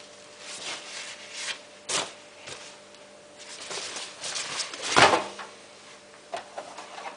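Handling noises: a few short rasping scrapes and rustles, the loudest about five seconds in, over a faint steady hum.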